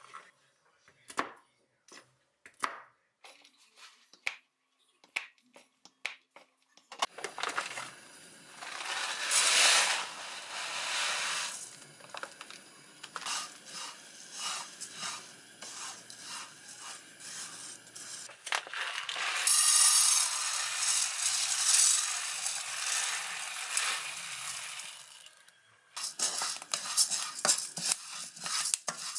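A few sparse knife clicks on a wooden cutting board as almonds are cut in half. Then rolled oats dry-roasting in a frying pan, stirred and scraped with a wooden spatula: a continuous rattling rustle of flakes against the pan. Near the end whole oat groats are stirred the same way.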